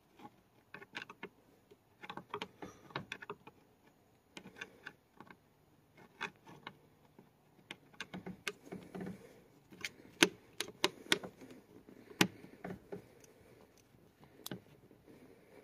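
Hand screwdriver backing screws out of a 1996–2000 Honda Civic's plastic interior trim panel: irregular small clicks and ticks, coming faster and louder from about eight seconds in.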